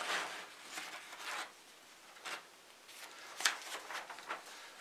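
Paper rustling as a model kit's printed instruction manual is unfolded and its pages handled: a series of soft, short rustles, with a sharper one about three and a half seconds in.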